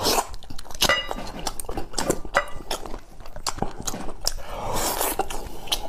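Mouth sounds of a person eating rice soaked in pork rib soup: wet chewing and smacking, with many irregular clicks.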